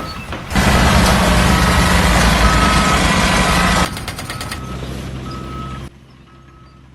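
A heavy construction vehicle's reversing alarm beeping steadily about once a second, over a diesel engine's rumble. The engine is loud for the first few seconds and then drops away, leaving mostly the beeps near the end.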